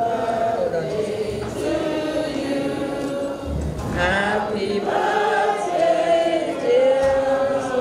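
A crowd of guests singing together, many voices at once.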